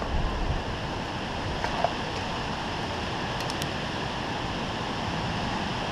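Steady, even hiss of outdoor background noise, with a faint click a little before two seconds in.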